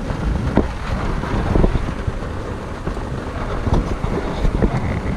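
Rain on a truck: a steady rushing noise with scattered louder taps of drops, and wind buffeting the microphone.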